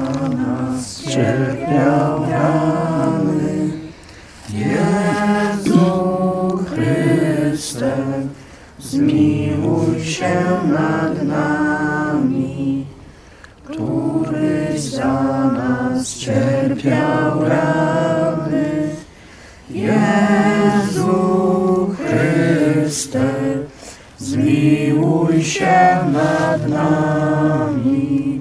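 A group of people singing a religious song together without accompaniment, in phrases a few seconds long with short breaks between for breath.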